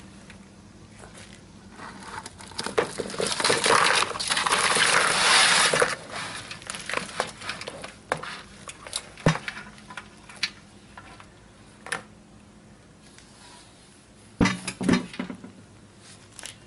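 Boiled crawfish, potatoes and vegetables tumbling out of an aluminum boil pot into a plastic bowl: a dense rattling rush for a few seconds, then scattered knocks as the last pieces drop, and a short clatter of the pot near the end.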